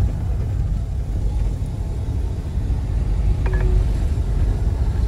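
Car engine and tyre rumble heard from inside the cabin while driving slowly through village streets, a steady low drone.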